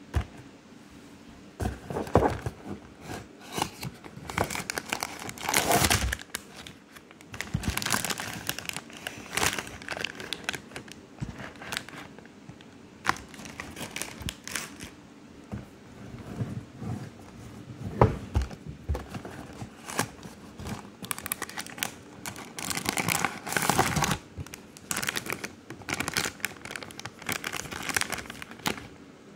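Plastic and paper packaging crinkling and rustling as it is handled, in irregular bursts with a few louder scrunches. Near the end it is the clear plastic wrapper of a mooncake on a gold tray being crinkled.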